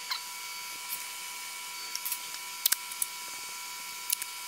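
Masking tape pulled from the roll and pressed over the open end of a stainless steel tube, heard as a few short crackles and clicks of handling. Under it runs a steady faint high-pitched whine.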